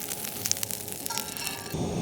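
Wood campfire crackling, with scattered sharp pops. Near the end it cuts abruptly to a steady hiss.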